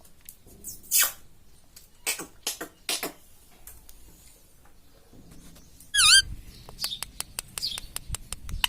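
Pet rose-ringed (Indian ringneck) parakeet making a few short squeaky chirps, then, about six seconds in, a loud warbling call that swoops down and up in pitch, followed by a fast run of short ticking clicks.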